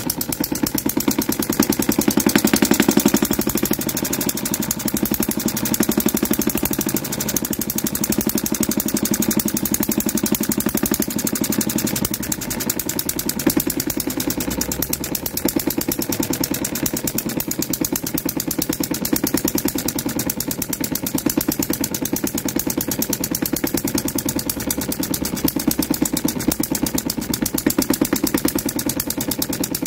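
16cc single-cylinder model diesel stationary engine, with mechanical fuel injection and compression ignition, running on its first run as it warms up: a rapid, even train of firing strokes. Its speed is set slightly slower near the end.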